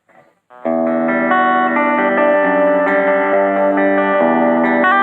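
Guitar played through effects, starting about half a second in: ringing, sustained chords that shift every second or so.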